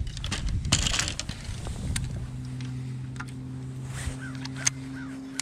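Handling and footsteps knock on the carpeted deck of a bass boat for the first two seconds. Then the electric trolling motor starts a steady low hum that runs on. A sharp click comes near the end.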